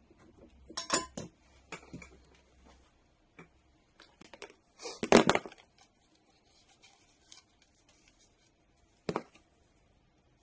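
Small handling noises of wire and hand tools on a workbench: scattered light clicks and taps, a louder half-second clatter about five seconds in, and a sharp click about nine seconds in.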